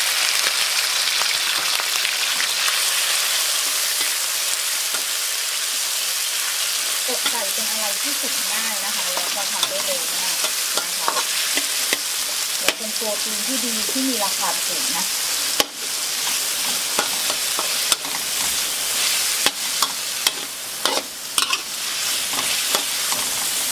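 Diced raw chicken breast sizzling in hot oil and garlic in a wok, a steady frying hiss, while a metal spatula stirs it with occasional scrapes and taps against the pan.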